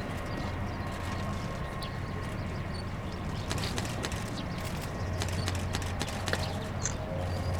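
Steady drone of the ShinMaywa US-1A flying boat's turboprop engines and propellers heard from a distance, a low hum with a thin steady whine above it, and scattered faint clicks.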